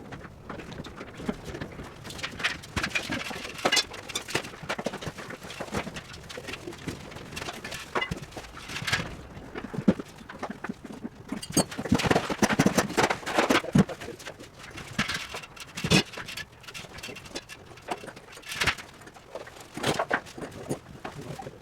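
Irregular knocking and clattering from demolition work on a prefab walk-in cold room, with a few louder strikes about halfway through and near the end.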